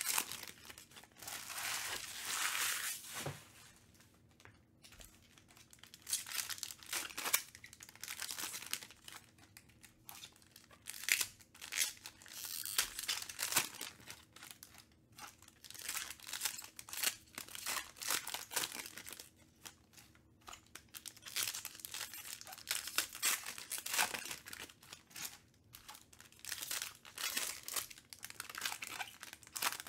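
Foil wrappers of Panini Prizm baseball card packs being torn open and crinkled by hand, in irregular bursts of crackling.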